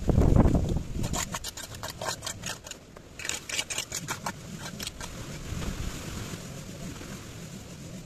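Broom bristles sweeping cut hedge clippings across tarmac in quick scratchy strokes, about four a second, stopping about five seconds in. A loud low rumble comes before the sweeping.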